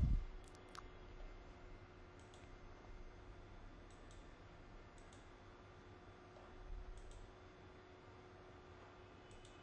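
Scattered computer mouse clicks, a few over several seconds, over a faint steady hum, with a soft low bump about seven seconds in.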